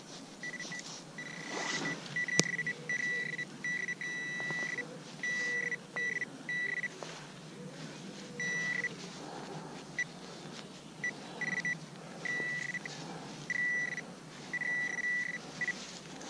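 Metal detector giving a steady high beep in a dozen or so on-off bursts of differing length: the detector sounding off on a buried target, here a coin. A single sharp click about two and a half seconds in.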